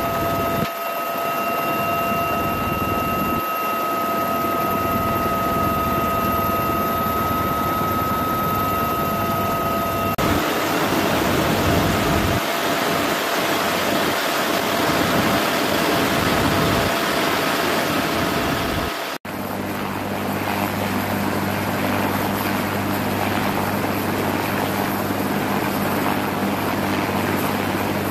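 Helicopter turbine engines and rotor running, in several spliced clips. A steady high whine comes first, then a rougher rushing noise. After a sudden cut about 19 seconds in, a lower steady hum follows.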